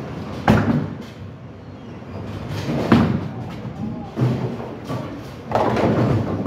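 Bowling alley sounds: a sharp knock about half a second in, a bowling ball thudding onto the lane on release about three seconds in and rolling, and a longer clatter near the end, over the steady rumble of balls rolling on the lanes.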